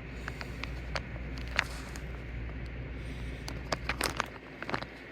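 Scattered light clicks and taps of handling, a few early and a small cluster about four seconds in, over a steady low hum.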